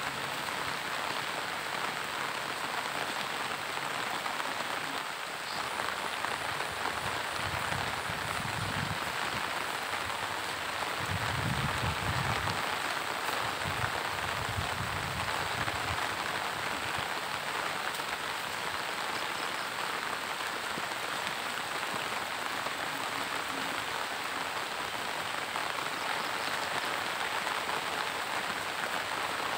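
Steady rain falling on foliage and wet ground, a continuous even hiss, with a low rumble for a few seconds in the middle.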